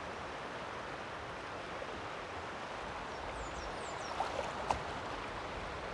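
Steady rush of a shallow river running over rocks. A few high chirps come about three and a half seconds in, then a few light knocks and splashes of a kayak paddle stroke near the end.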